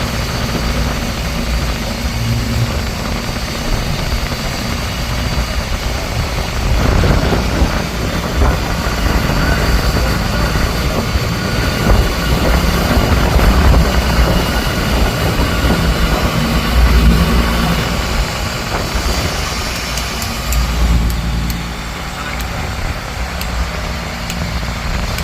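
Fishing boat's engine running steadily with a low hum, growing rougher and noisier from about seven seconds in.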